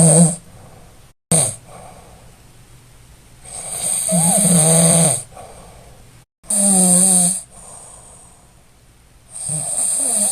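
A sleeping person snoring heavily: loud, rattling snores about every two to three seconds, each lasting a second or more, with quieter breathing between them. There is a short sharp click a little over a second in.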